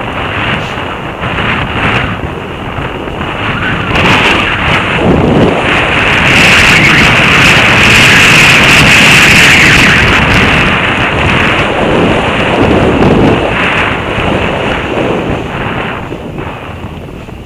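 Wind rushing over a bike-mounted camera's microphone as the bicycle descends at speed, building to its loudest midway and easing off near the end.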